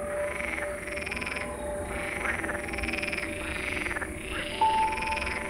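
Frogs calling in a night chorus, short croaks repeating about twice a second, over held notes of soft background music.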